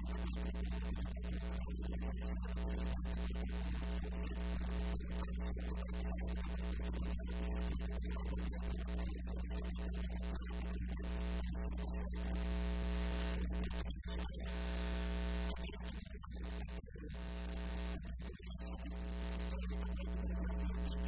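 Steady electrical mains hum, a low buzz, on the interview recording, with a man's speech underneath.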